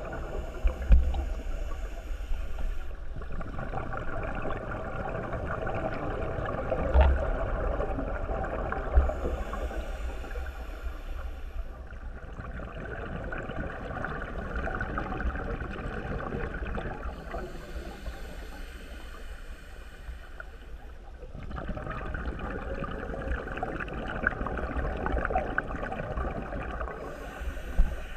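Muffled underwater water noise heard through a GoPro Hero3 Black's waterproof housing, with a few low thumps about a second in and again around seven and nine seconds in.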